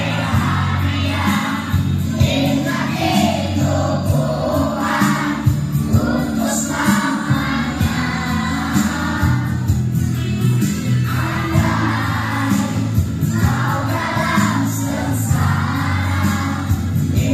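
Children's school choir singing together in phrases, over a steady instrumental accompaniment with sustained low notes.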